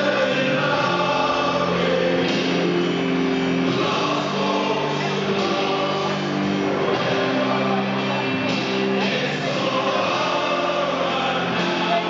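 A song with many voices singing together in long held notes, the sound of a stadium crowd singing along with music.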